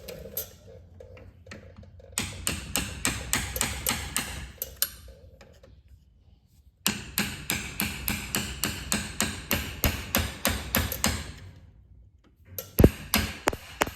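Hammer blows, about three a second, on a screwdriver used as a punch to drive a worn rear suspension bushing out of a Polaris Ranger's suspension arm. The blows come in three runs with short pauses between.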